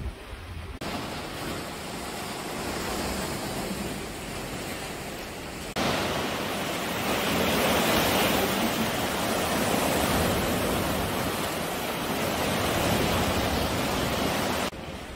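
Sea waves surging and churning into a narrow rock gorge: a steady rushing of surf that comes in abruptly about six seconds in and cuts off near the end. Before it, a quieter stretch of wind and sea noise.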